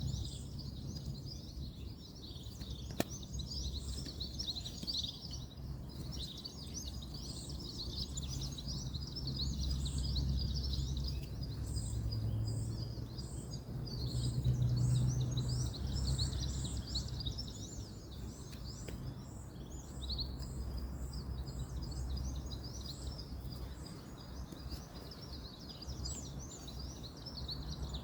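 Birds chirping and calling continuously over a low, steady rumble of distant road traffic that swells and eases; a single sharp click about three seconds in.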